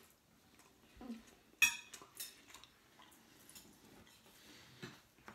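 Cutlery clinking against plates while eating: a few light clicks and one sharp, ringing clink about one and a half seconds in.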